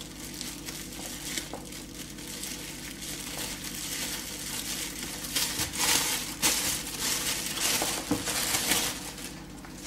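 A plastic bag of spring onions crinkling as it is handled: small rustles at first, then several loud crackling bursts in the second half, over a faint steady low hum.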